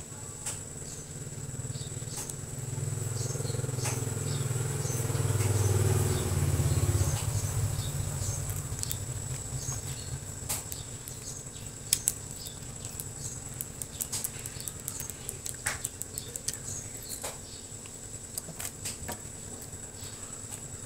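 Small clicks and crinkles of a plastic snack packet being handled while sweets are eaten, over a steady high whine and low hum. A low rumble swells and fades away between about two and seven seconds in.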